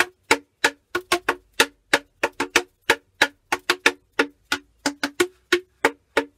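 Cardboard tubes of different lengths slapped on their open ends with a piece of card, each slap a short, sharp pitched pop. Played as a quick rhythm of about four slaps a second, the pitch changing as different tubes are struck.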